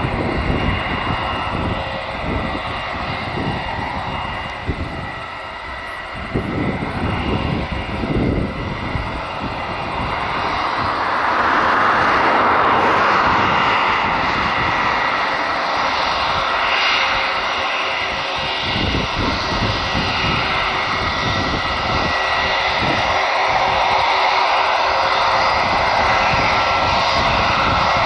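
Airliner engines running with a steady roar and a thin whine, growing louder about ten seconds in, while gusts of wind buffet the microphone.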